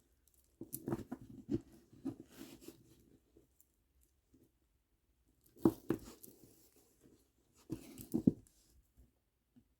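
Plastic pony beads clicking and rattling against each other as a kandi bracelet is handled, in three short bouts of clicks and rustling.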